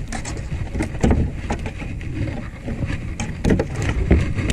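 A speckled trout flopping on a fiberglass boat deck: irregular slaps and taps over a steady low rumble.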